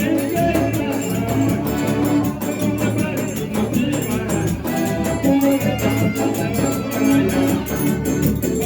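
Forró music playing loud and steady, with a fast, even percussion beat and a pitched melody over it.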